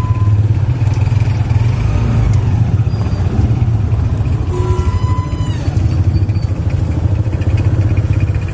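Small engine running steadily with a low drone while riding, with a brief higher-pitched squeal about five seconds in.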